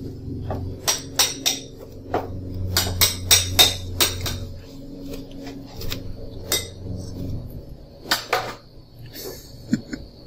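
Dishes and utensils clinking and knocking as a kitten's meal is prepared, the sharp clinks thickest in the first few seconds, over a low steady hum that stops about seven seconds in.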